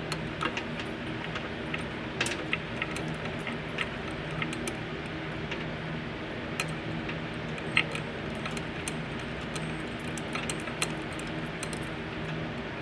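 Irregular small metal clicks and clinks as the parts of a grandfather clock movement are handled and worked on, with one sharper click a little past halfway, over a steady low hum.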